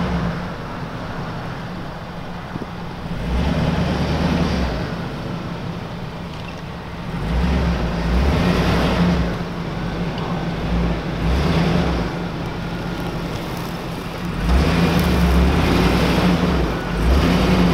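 Hummer H2's V8 engine running at low speed, swelling in several surges of throttle as the truck crawls over a pile of rocks.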